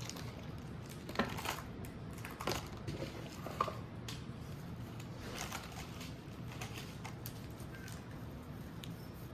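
Small plastic building-kit parts being handled and pressed together: scattered sharp clicks and brief crinkles over a steady low hum.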